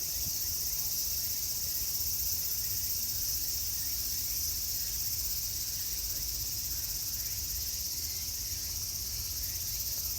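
A chorus of cicadas calling together in one steady, high-pitched drone that does not let up.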